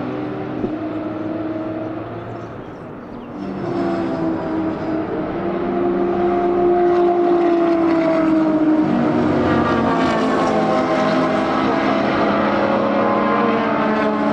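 Racing car engines under hard acceleration, pitch climbing and dropping through gear changes, several engines overlapping. About four seconds in, the sound swells as the cars draw closer and stays loud.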